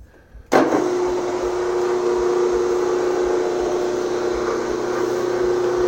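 Homemade 12-inch disc sander driven by a Baldor electric motor, coming in abruptly about half a second in and then running steadily with a constant hum.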